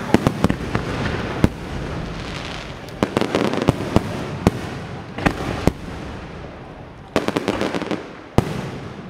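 Electronically fired fireworks launching and bursting directly overhead: sharp bangs come in quick clusters, about a second apart, over a steady rush of noise.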